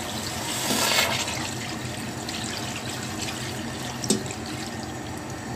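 Thick meat-stock sauce poured from a stainless steel bowl into a stainless steel pot of goose feet, splashing loudest about a second in and then running on steadily, with one sharp knock about four seconds in.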